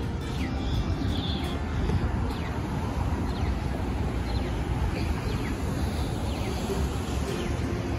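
City street ambience: steady traffic noise with low wind rumble on the microphone, under short, high, falling chirps that repeat roughly once a second.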